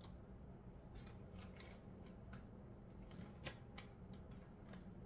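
Faint, scattered clicks and crinkles from a plastic bag being handled, in otherwise near silence.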